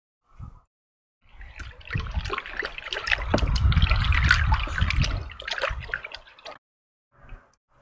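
Scrubbing a ceramic tile in a bucket of water: brush rasping over the tile with water sloshing and dripping for about five seconds, then stopping abruptly.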